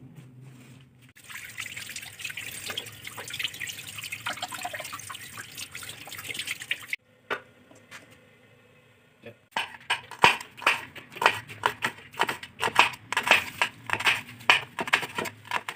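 Water running from a tap for several seconds, then a knife slicing green chillies on a cutting board, with quick, repeated sharp strokes.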